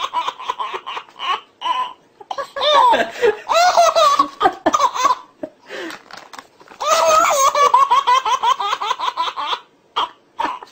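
Baby belly-laughing hard in long runs of rapid high-pitched ha-ha pulses. The laughter breaks off briefly about two seconds in, around six seconds, and near the end.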